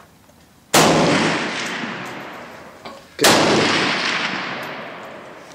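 Two rifle shots about two and a half seconds apart, each a sharp loud crack followed by a long echoing tail that fades over a couple of seconds.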